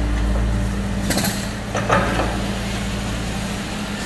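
Hyundai HX235 excavator's diesel engine running steadily under load as its demolition jaw attachment works concrete rubble. A short fast rattle comes just after a second in, and a few sharp cracks of breaking concrete come around two seconds in.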